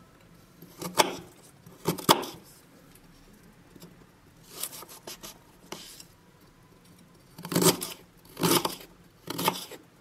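Kitchen knife cutting through fresh ginger root on a wooden cutting board, one separate cut at a time: two cuts early, a few softer ones in the middle, and three louder ones near the end.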